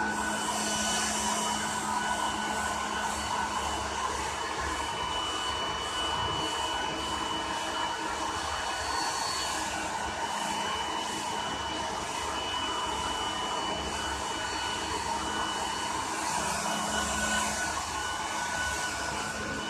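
Electric blow dryer running steadily, a constant airy rush with a thin high whine.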